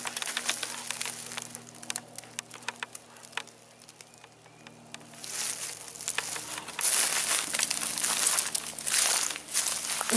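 Footsteps crunching and crackling through dry leaf litter and twigs on a forest floor. A quieter spell comes a few seconds in, then louder rustling and crunching from about halfway.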